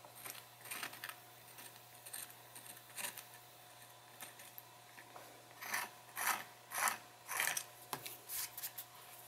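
X-Acto knife blade scraping rough dried binding glue off the spine edge of a stack of paper pages, so that no snag will tear a page as it comes out. Short scratchy strokes, with a run of four louder scrapes about half a second apart near the end.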